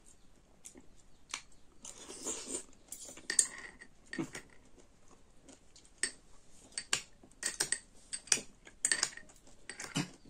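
Metal fork and spoon clinking and scraping against a small glass bowl while stirring mulberries, in irregular sharp clinks that come thicker in the second half, with some chewing between them.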